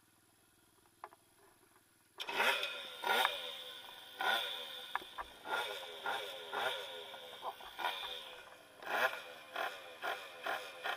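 Tuned 74cc Gilardoni two-stroke engine of a Puch Maxi moped starting about two seconds in, then revved up and down again and again in short blips.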